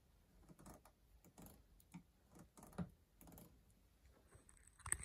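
Faint, irregular light clicks and taps, about ten of them, with a sharper click near the end.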